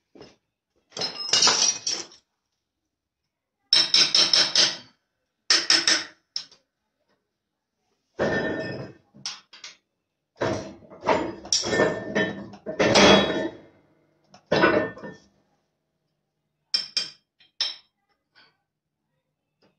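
Steel parts of a strapping-seal (clip) making machine clanking and clinking as it is worked by hand to form a clip. They come in several separate bursts with a metallic ring and pauses between them.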